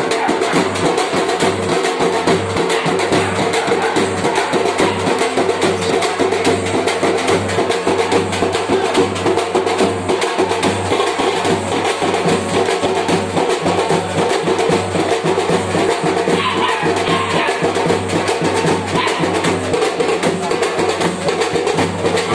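Fast, continuous drumming by a street drum band, with rapid, unbroken strokes and a steady held tone underneath.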